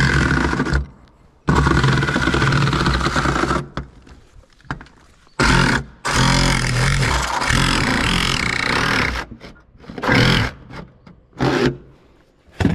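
Milwaukee Fuel cordless reciprocating saw cutting through a painted steel roofing sheet. It runs in about six stop-start runs, the longest about three seconds, with short pauses between.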